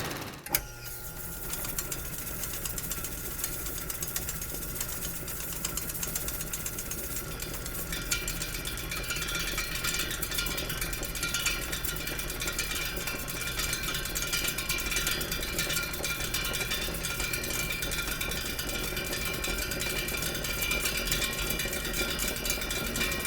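Film projector running with a steady, rapid mechanical clatter, after a single sharp click about half a second in. A faint high whine joins about eight seconds in.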